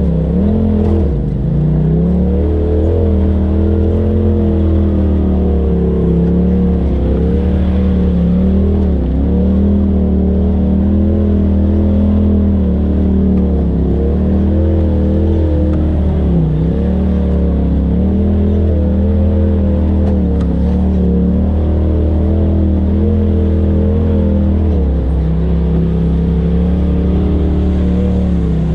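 Polaris RZR side-by-side's engine running at low revs as it crawls along a rutted trail, its pitch dipping and rising slightly with the throttle every few seconds.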